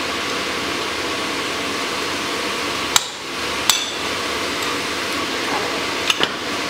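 Sledgehammer blows on steel while a drift is driven through the hardy hole of a striking anvil, each strike sharp with a metallic ring. There are two strikes about three seconds in, then two quick ones close together near the end, over a steady background rush.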